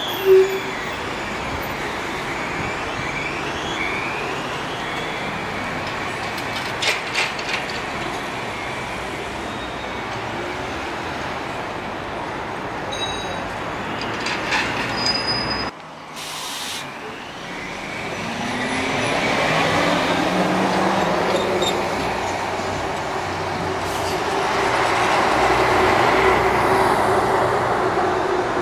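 Trolleybuses running, electric traction motor whines gliding up and down in pitch over road noise, with a few sharp clicks about a quarter of the way in. Past the middle the sound cuts abruptly to another recording, where a whine rises in pitch and then holds steady as the noise grows louder.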